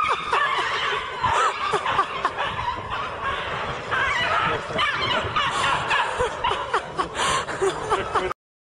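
People laughing and chuckling over outdoor background noise, cutting off abruptly near the end.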